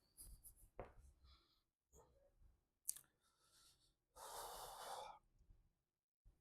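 Mostly near silence in a small room, with a few faint clicks. A little past the middle comes one breathy exhale lasting about a second, the loudest sound.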